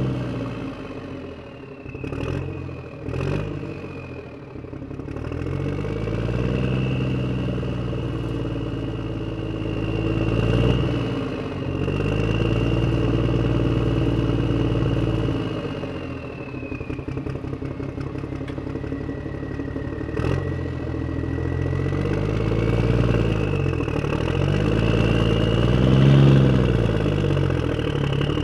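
Tractor engine running as the tractor drives on a road, its revs repeatedly rising and falling, with a high whine above it. Two sharp clunks come a few seconds in while the engine drops back, and another about twenty seconds in.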